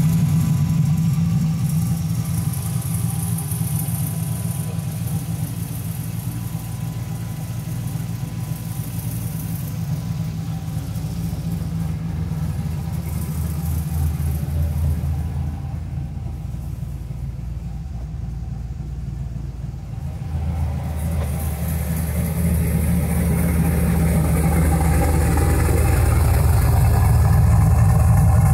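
Turbocharged LS V8 in a Mazda RX-7 idling steadily through its full exhaust, getting louder over the last few seconds as the tailpipe is approached.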